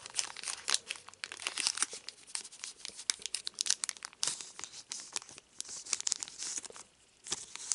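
Foil wrapper of a Dragon Ball Z CCG booster pack being torn open and crinkled in the hands: a rapid, irregular run of crackles and rustles that pauses briefly near the end.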